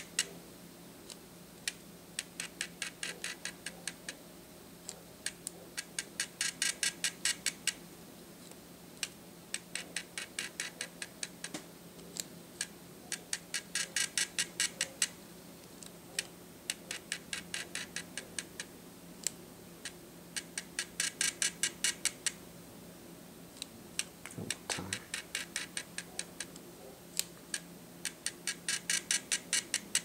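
Altura speedlight's motorised zoom head being driven back and forth over and over: about eight runs of rapid, evenly spaced ticking, each one to three seconds long, with short pauses and a few single clicks between them.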